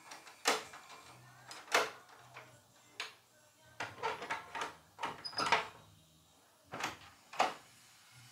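A key turning in a door lock and a metal barrel bolt being slid back on a wooden door: a series of sharp metallic clicks and clacks.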